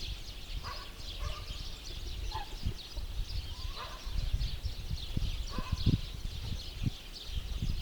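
A chorus of small birds chirping and twittering without pause, with a few short, lower single calls standing out here and there. A low rumble underneath grows louder in the second half.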